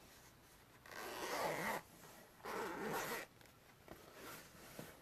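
Zipper on a camera carrying case being pulled open in two strokes, each about a second long, followed by a few faint handling taps.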